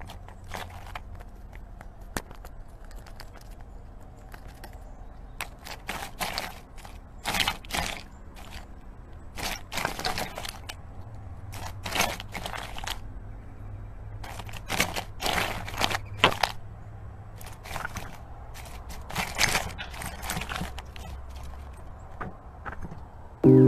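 A chipmunk eating with its head inside a ceramic mug, close to a small microphone: irregular crunching and crackling clicks, some in quick clusters, over a faint low hum.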